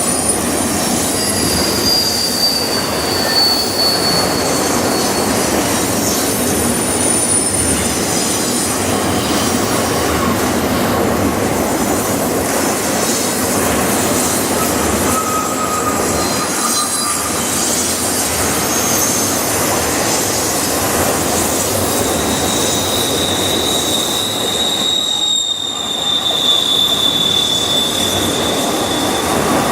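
Double-stack container cars of a freight train rolling past: a steady rumble of wheels on rail with some clickety-clack, and high wheel squeals that come and go, the longest held through the last several seconds.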